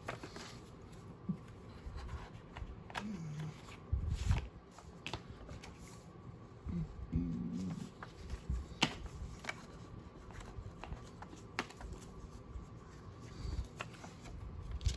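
Paper inserts rustling as they are handled and fitted onto a ring planner's rings, with several sharp clicks scattered through and a dull thump about four seconds in.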